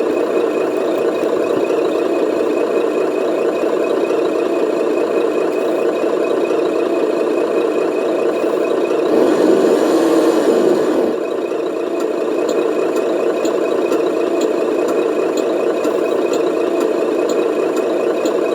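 Radio-controlled model truck running, a steady engine-like drone from its motor and sound module that swells louder about halfway through. A light regular ticking, about two a second, joins in the second half.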